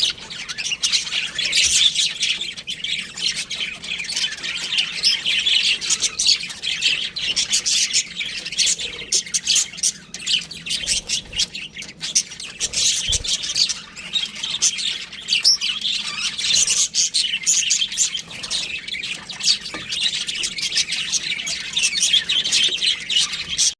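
Budgerigars (parakeets) chirping and chattering in a dense, unbroken stream of short, high calls.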